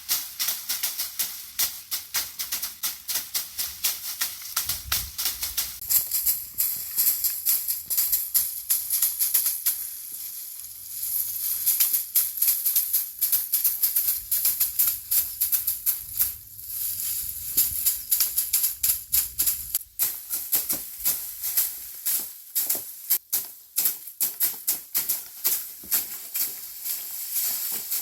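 Dried perilla plants being threshed: quick repeated strikes with a dry rattle and patter of perilla seeds shaken loose, about two strong hits a second, with a brief lull partway through.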